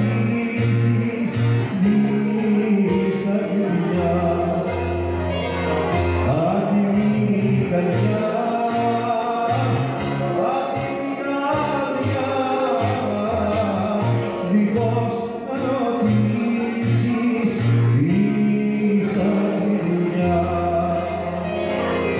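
A man sings a Greek song into a microphone over electric keyboard accompaniment, with a moving bass line and plucked strings.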